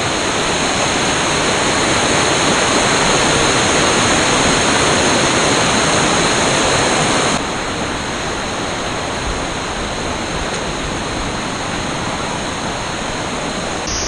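Hebbe Falls, a tall waterfall, making a loud, steady rush of falling water. It drops suddenly to a slightly lower level about seven seconds in.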